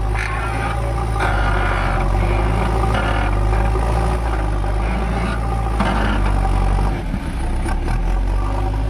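JCB 3DX backhoe loader's diesel engine running steadily, with a mechanical clatter that swells and eases several times and dips briefly about seven seconds in.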